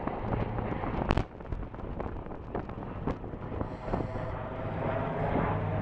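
Outdoor wind buffeting the microphone over a low, steady drone, with a few short knocks; one sharper knock comes about a second in.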